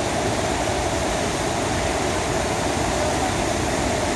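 Mountain stream rushing over rocks: a steady, even rush of white water.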